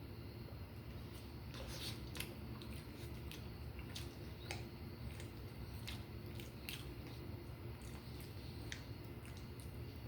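Close-miked eating: chewing with wet mouth clicks and smacks at irregular intervals.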